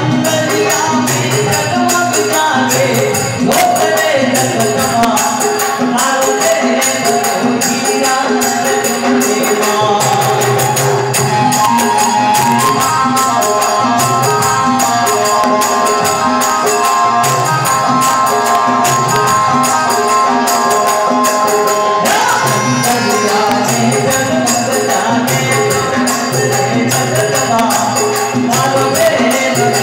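Live Indian devotional bhajan music: harmonium and electronic keyboard play a melody over dholak drum beats and fast, steady jingling hand percussion. From about a third of the way in to about three quarters, a long held melodic line rides on top.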